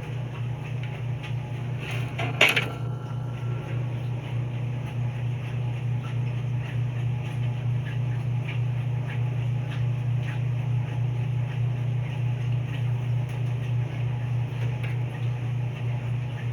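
A steady low hum, with a single sharp knock about two and a half seconds in and a few faint ticks.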